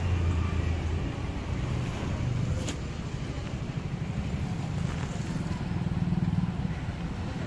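Street traffic noise with motor vehicle engines running, a low hum that shifts in pitch, and two short clicks, about three and five seconds in.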